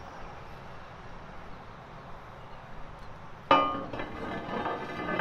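A sudden metal clank on the ride's steel drive-tower parts about three and a half seconds in, with a brief ringing tone as it dies away, then softer knocks. Before it, only faint outdoor background.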